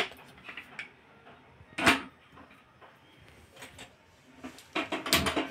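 An aluminium pressure cooker set down on a gas stove with a single sharp knock about two seconds in, followed near the end by a short cluster of clicks and clatter.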